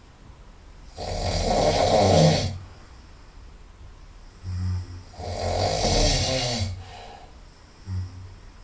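Very loud nasal snoring from a sleeping person: two long snores about four seconds apart, each lasting a second and a half or so, with a brief low sound shortly before the second and another near the end.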